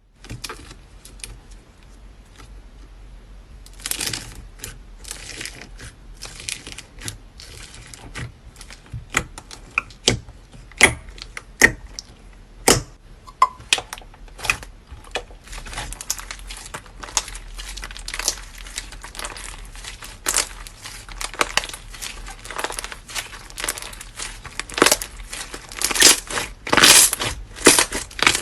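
Slime being squeezed, poked and stretched by hand: irregular sticky clicks, pops and crackles, with a few loud single pops around the middle and denser, louder crackling in the last few seconds.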